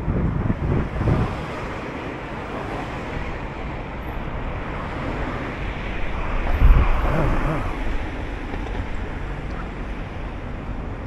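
Street traffic noise with wind buffeting the microphone, the buffeting strongest in the first second or so. A louder low rumble swells and fades about six and a half seconds in.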